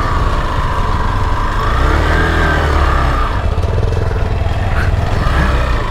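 Hero Xpulse 200's single-cylinder engine running at low speed on a muddy dirt trail, revving up about two seconds in and easing back off about a second later.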